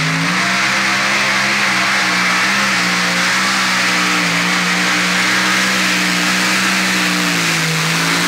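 Competition pulling tractor's engine running hard during a pull: a loud, steady engine note that sags slightly in pitch near the end.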